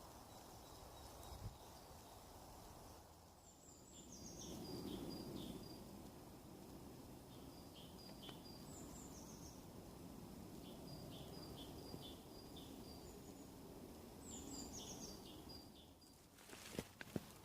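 Faint song of a small woodland bird: a quick descending run of high notes, heard three times about five seconds apart, over a low background hiss. A few sharp crackles near the end.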